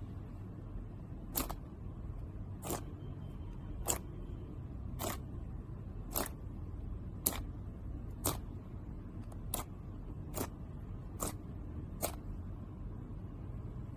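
A series of short, sharp clicks, roughly one a second and not quite evenly spaced, over a steady low hum.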